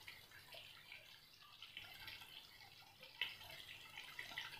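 Faint bubbling and popping of mutton kheema gravy simmering in the pan, with a light click of the steel ladle a little after three seconds in.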